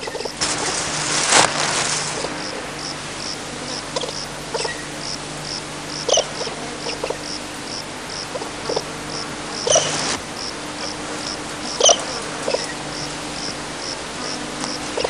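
Insect chirping steadily, about two to three high chirps a second, over a low steady hum. A few short scratchy clicks come through, and there is a brief rush of hiss near the start.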